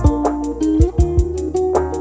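Background music: plucked-string notes over a steady beat.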